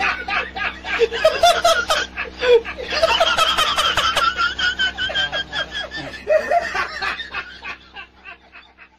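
A man laughing hard and uncontrollably in long, rapid peals. About three seconds in the laugh rises into a high, drawn-out stretch, and it fades out near the end.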